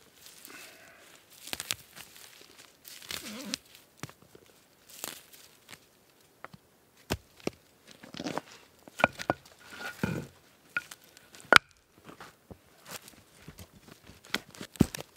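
Footsteps and scuffing on loose rock rubble, with stones clacking and scraping as large flat rocks are lifted and shifted by hand. Several sharp knocks of stone on stone stand out.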